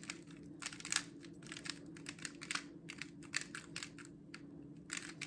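Rubik's speed cube being turned by hand: quick, irregular clicks of plastic layers, some in fast runs, over a steady low hum.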